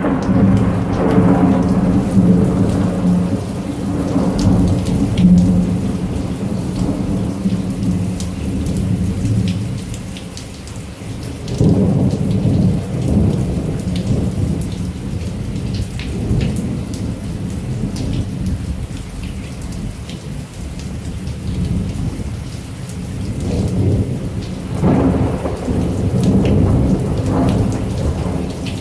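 Heavy rain falling steadily, with rolling thunder: a long low rumble in the first few seconds, another starting about midway, and a third near the end.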